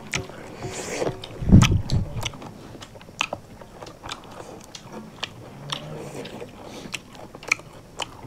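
Close eating sounds of people eating by hand: chewing, crunching and sharp wet mouth clicks, with fingers working food on steel plates. A low thump comes about a second and a half in.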